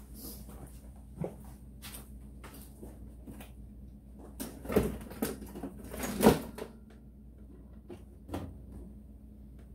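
Scattered clicks and knocks from gear being handled, the loudest in two short clusters a little before and after the middle, over a faint steady low hum.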